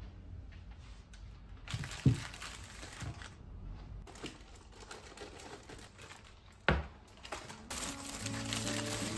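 Brown paper bag rustling and crinkling as it is handled, with two sharp knocks, one about two seconds in and one past the middle. Background music comes in near the end.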